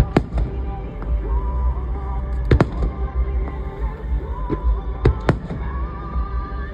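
Firework shells bursting overhead: about five sharp bangs, the loudest about two and a half seconds in. Music plays underneath.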